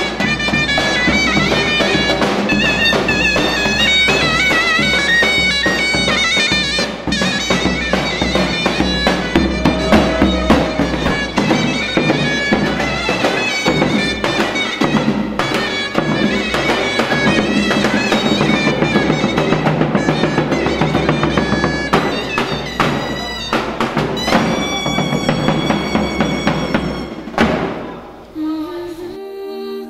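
Loud wedding music: a shrill reed wind instrument plays a fast, ornamented melody over drum beats. Near the end it cuts to different, calmer music.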